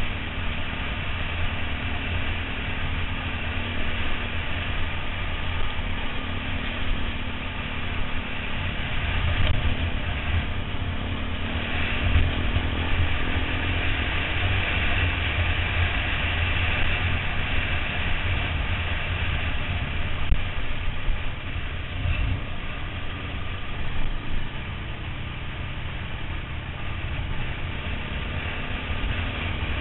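Trail motorcycle engine running as the bike rides along a dirt track, under a heavy low rumble of wind on a helmet-mounted camera's microphone.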